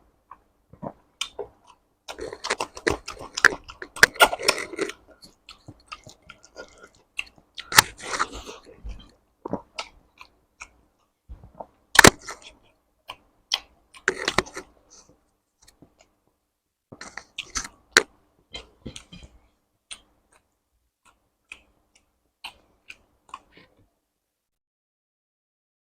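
Close-miked eating sounds: wet chewing, smacking and crunching in irregular bursts, with a few sharper crunches, such as one about twelve seconds in, then only small clicks near the end.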